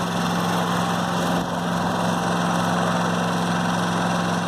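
Yamaha EF4500iSE inverter generator running steadily under heavy load from an RV air conditioner and microwave, heard from its exhaust side, where it is a tad louder.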